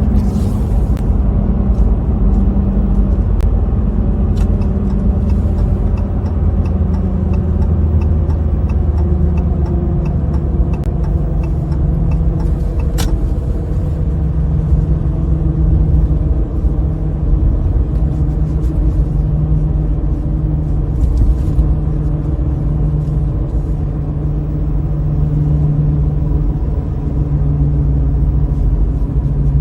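A truck being driven, heard from inside the cab: a steady engine and road drone whose pitch drifts a little as the engine speed changes.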